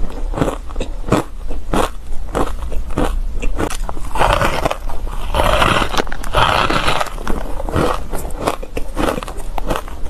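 Shaved ice coated in matcha powder being bitten and chewed: a run of sharp, crackly crunches, with a denser, louder crunching stretch around the middle as a fresh clump is bitten.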